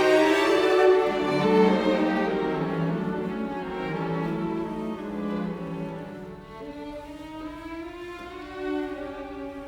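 Background music: slow bowed strings, violin over cello, with sustained notes that fade somewhat in the second half.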